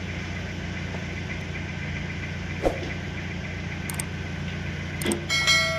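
An engine running steadily at idle, a low even hum. A light tap about two and a half seconds in, and a sharp metallic clink that rings briefly near the end.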